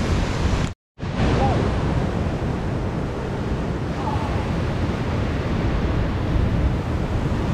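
Ocean surf washing and breaking against rocks, with wind buffeting the microphone. The sound cuts out completely for a moment about a second in.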